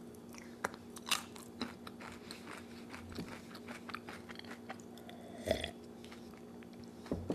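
Close-miked chewing of a chocolate-dipped churro: soft crunchy clicks and mouth sounds. A louder swallow comes about five and a half seconds in as milk is drunk from a glass jar.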